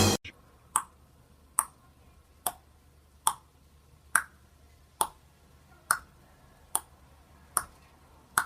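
Background music cuts off at the start. Then about ten sharp clicks follow at an even pace, a little more than one a second, over a quiet background.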